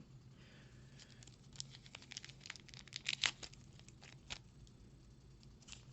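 Magic: The Gathering booster pack and cards being handled: a run of light crinkles and clicks of the foil wrapper and card stock, stopping about four and a half seconds in.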